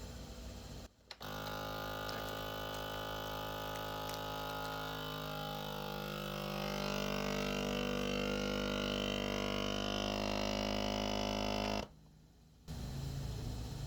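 Electric vacuum food sealer running on its moist setting, a steady motor hum with the pump drawing the air out of the bag. The tone changes about halfway through, and the hum cuts off abruptly near the end.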